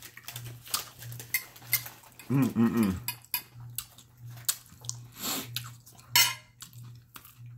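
A metal fork clicking and scraping against a plate, with eating noises between. About two and a half seconds in comes one short vocal sound.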